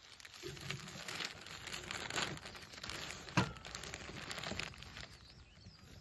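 Paper sack of magnesium oxide rustling and crinkling as it is lifted and tipped into a plastic spreader hopper, with one sharp knock about three and a half seconds in.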